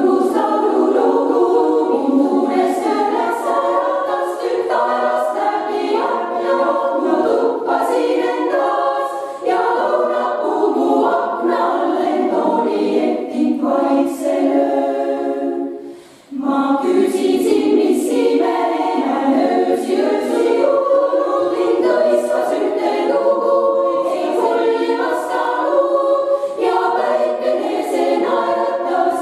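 Women's choir singing a cappella in several parts, in Estonian, with a short break about halfway before the voices come back in together.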